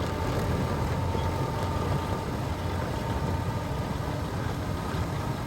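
Massey Ferguson 8650 tractor engine running steadily while pulling an Alloway sugar beet defoliator, with a steady whine over the engine's rumble.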